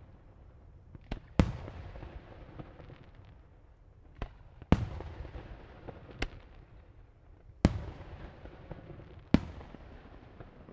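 Aerial firework shells bursting: a string of sharp bangs one to three seconds apart, four of them much louder than the rest, each trailing off in a low rolling rumble.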